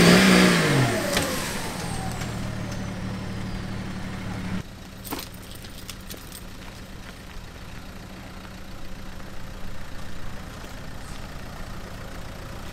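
Off-road 4x4 engine revving hard as it climbs a rutted dirt track, its pitch rising and then falling in the first second, then running on steadily. After a sudden cut a few seconds in, a Dacia Duster's engine runs low and steady as it crawls uphill in first gear, with a few faint clicks.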